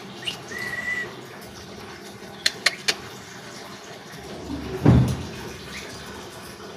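A pet bird's single short, flat whistle, then three quick sharp clicks and, about five seconds in, a loud low thump, over a steady hiss.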